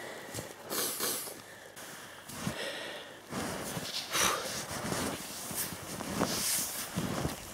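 Footsteps crunching through deep snow at an irregular pace, with heavy breathing.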